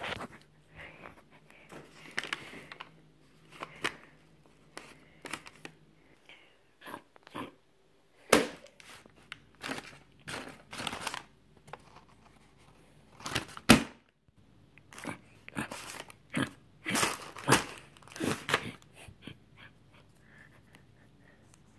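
Fast-food paper takeout bag and paper burger wrapper rustling and crinkling in irregular bursts as they are handled, with a few sharp crackles, the loudest about two-thirds of the way through.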